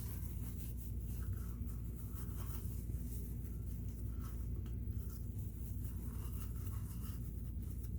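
Faint rubbing and scratching of paper wiping old grease off a sewing machine's metal gears, over a steady low hum.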